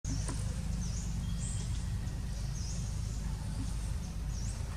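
Outdoor ambience: a steady low rumble, with short high-pitched chirps that dip and rise, repeating about once a second.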